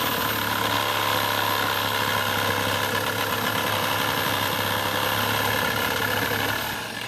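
Power saw cutting into a tree, its motor running steadily with a high whine; the motor winds down and stops near the end.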